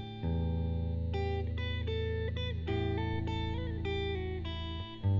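Background music: a plucked guitar melody over a steady low note.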